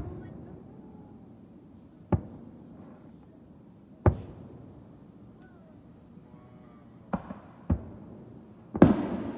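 Aerial fireworks bursting: six sharp bangs a second or two apart, each trailing off in a short echo, the last one near the end the loudest and longest.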